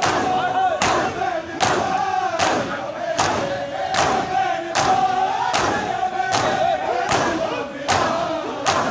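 A crowd of mourners doing matam, striking their chests in unison with open hands, about one loud slap every 0.8 seconds. Men's voices chant a mourning lament in time with the beating.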